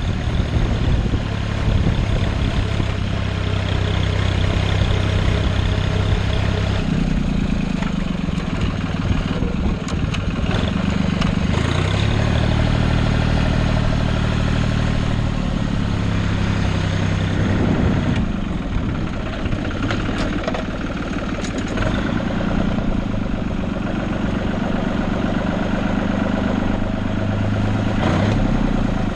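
Farm tractor engine running steadily at a low speed, its note shifting to a different pitch about seven seconds in and wavering again later.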